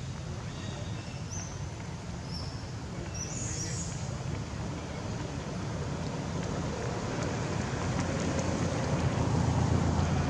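Steady low outdoor rumble that grows louder toward the end, with a few faint, short high chirps in the first few seconds.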